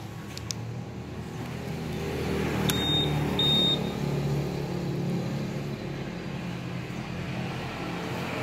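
Honda PCX 160's answer-back buzzer sounds two short high beeps about half a second apart, a little under three seconds in, answering a press on the smart-key remote. A few faint clicks come before them, over a steady low hum.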